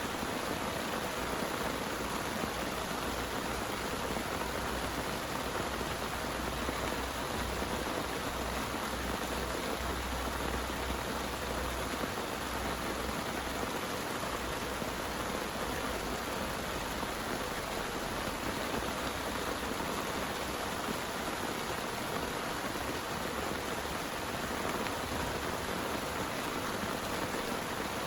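Heavy rain falling steadily, a dense, even patter with no letup. A faint low rumble lies under it for about the first half.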